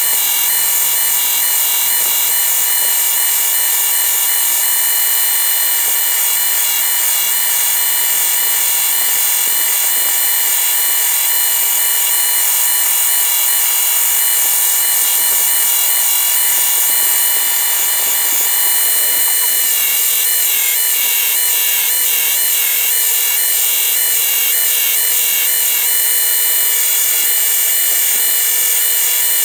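Electric buffing machine with cloth buffing wheels running steadily at speed, a pipe shank cap held against the spinning wheel for buffing. The steady whine changes tone about two-thirds of the way through.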